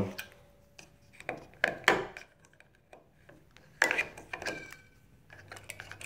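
AA batteries being pried out one by one from an electronic door lock's spring-loaded plastic battery holder: a few separate plastic clicks and scrapes, one with a short metallic ring from the contact springs. The batteries are being removed to reset the lock after it would only chime an error.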